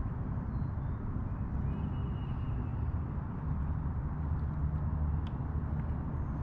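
Wind buffeting the microphone on a kayak on open water: a steady low rumble with a thin hiss above it and a few faint ticks.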